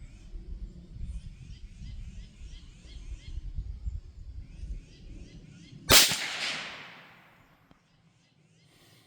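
A single shot from a Marlin 782 bolt-action .22 Magnum (.22 WMR) rifle about six seconds in, its report fading over about a second and a half. Birds chirp in the background, over a low rumbling noise before the shot.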